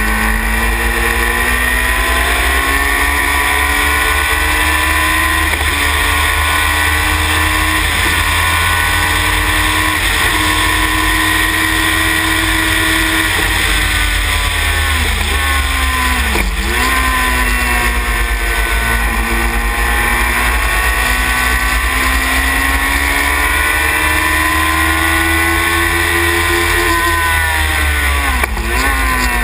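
A Sylva Phoenix sports racing car's Yamaha R1 motorcycle engine at racing speed, heard from on board. The engine note climbs and falls with the throttle, with sharp dips in pitch about sixteen seconds in and again near the end.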